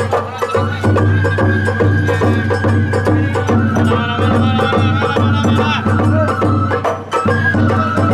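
Sawara bayashi festival music played live: a bamboo flute melody with held, ornamented notes over a steady beat of taiko drums and percussion strikes.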